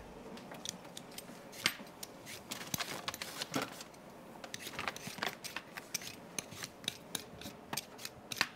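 Hand-held vegetable peeler scraping the skin off raw potatoes: a run of short, irregular scraping strokes, with light kitchen clatter.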